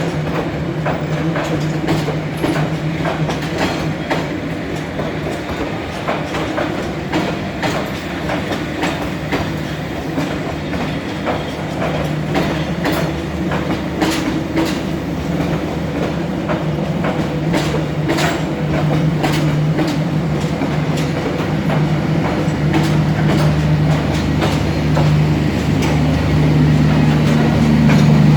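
Passenger train coaches rolling past, wheels clicking over the rail joints in an irregular stream of clacks, with a steady low hum that grows louder near the end.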